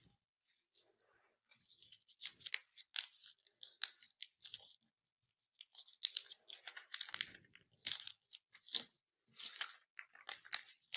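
Newspaper being folded into pleats and pressed flat by hand: faint, irregular crackling and rustling of the paper.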